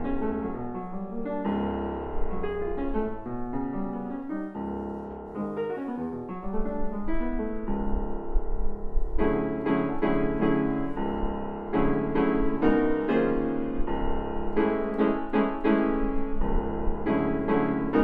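1897 Chickering 109C grand piano, on its original recrowned soundboard, being played: a classical-style passage of chords and runs that grows fuller and louder about halfway through.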